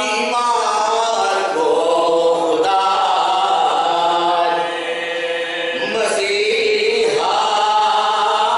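A small group of men chanting a devotional recitation together into one microphone, unaccompanied, in long held melodic lines with a short breath break about six seconds in.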